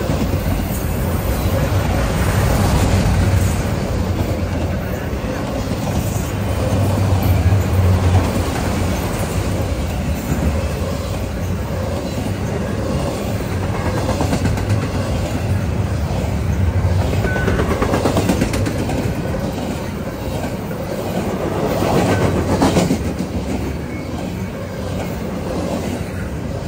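Freight train rolling past: a steady rumble of cars with wheels clicking over the rail joints, swelling a little about a third of the way in and again near the end.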